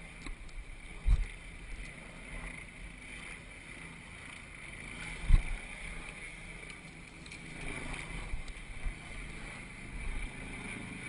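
Wind and handling noise on a helmet-mounted camera's microphone, with two dull low thumps, one about a second in and a louder one about five seconds in.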